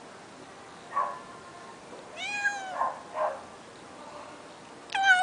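A hungry cat meowing: a short call about a second in, a clear meow a little after two seconds followed by two short sounds, and a long meow that slides down in pitch near the end.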